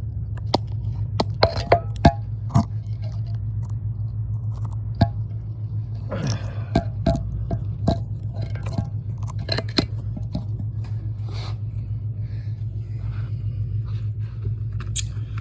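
Scattered clicks and light metallic knocks, some ringing briefly, from copper pipe and plumbing fittings being handled and worked, over a steady low hum.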